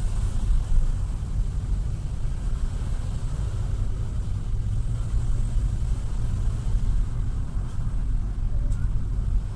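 Steady low rumble of a car driving slowly in traffic, heard from inside the cabin.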